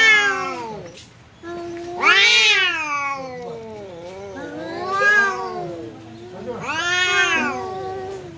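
Two domestic cats yowling at each other face to face in a territorial standoff with a visiting cat, the warning before a fight. Four long rising-and-falling yowls come about every two seconds, with a lower drawn-out moan between them.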